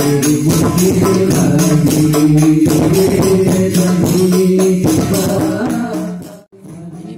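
Live sholawat: men sing Islamic devotional chant to a steady rhythm of hand-held rebana frame drums, amplified through a PA system. The music fades and cuts off about six and a half seconds in.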